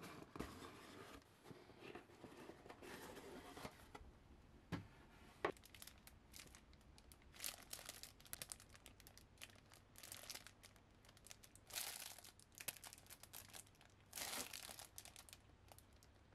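Clear plastic bags holding a plastic model kit's parts sprues crinkling in short bursts as they are handled. Two light knocks come about five seconds in.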